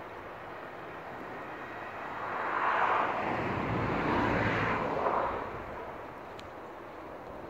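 A vehicle passing by: a broad rushing noise swells up about two seconds in, holds for a few seconds, then fades away, over a steady outdoor background hum.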